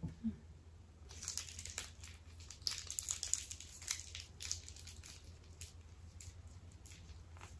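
Plastic piping bag of red icing crinkling as it is twisted and squeezed in the hands. The crackling starts about a second in and thins out after about five seconds.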